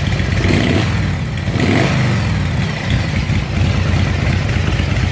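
Motorcycle engine with a freshly rebuilt S&S Super E carburetor, running at idle from a cold start without the choke. It holds a steady idle, which shows the carburetor rebuild worked.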